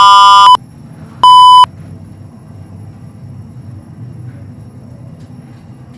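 Kone lift's electronic beep sounding very loud and harsh: a long steady tone cuts off about half a second in, and one short beep of the same pitch follows about a second later. After that only a low steady hum remains. The title presents the lift's sounds as faulty.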